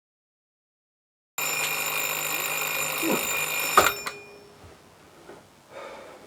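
Bell alarm clock ringing loudly and steadily, starting about a second and a half in, then cut off with a sharp click about two and a half seconds later; faint rustling follows.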